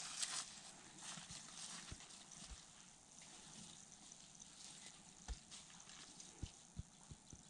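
Footsteps and rustling in dry grass and leaf litter as someone walks up a grassy slope: a loud brushing rustle at the start, then fainter steps with a few soft, low thuds.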